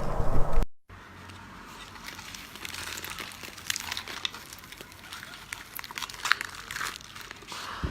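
Close-miked eating sounds: irregular crisp crunching and crinkling clicks. A louder passage cuts off abruptly under a second in.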